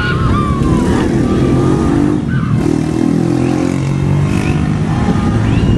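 Heavy wind rumble on the microphone over an outdoor marching crowd, with distant voices and a few thin, gliding high calls.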